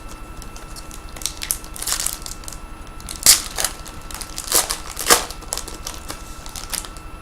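Trading cards and their packaging being handled: a string of short scrapes, rustles and clicks, the loudest about three and five seconds in.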